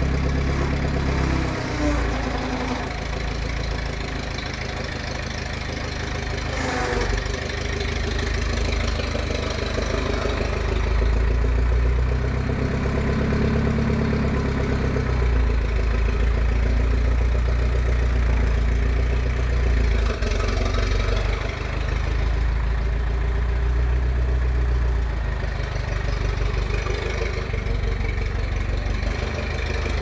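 Old forklift's engine running, a steady low rumble that gets heavier and shifts in level several times, as when it is being worked.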